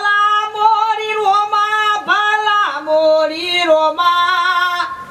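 A man singing loudly in long, high, drawn-out notes with a wavering pitch, one voice alone; the melody drops lower about halfway through.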